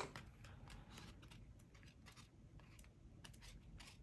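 Faint, irregular paper rustles and light ticks as the pages of a sticker book are flipped through by hand.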